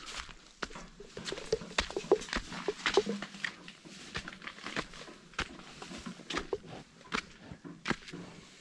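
Footsteps on a dirt path and concrete steps strewn with dry leaves: irregular crunches and scuffs.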